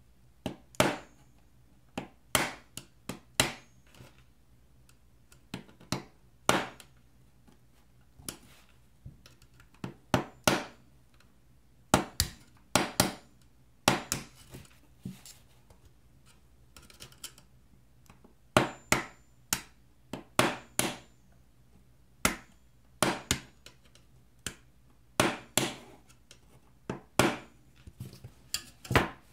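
Sharp clicks and snaps of a hand tool working the keyboard rivets out of a MacBook Pro's aluminium top case. The clicks come irregularly, about one a second and often in quick pairs.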